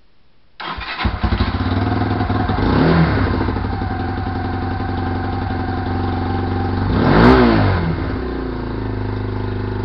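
Lexmoto LXR 125's single-cylinder four-stroke engine starts about half a second in and runs. It is blipped around three seconds in and revved harder about seven seconds in, the pitch rising and falling each time, then settles to a steady idle. It is starting and running cleanly with the faulty IAP/IAT sensor replaced, its start-and-run fault cured.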